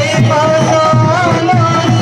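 Loud devotional festival music: a wavering, ornamented high melody over a busy drum rhythm.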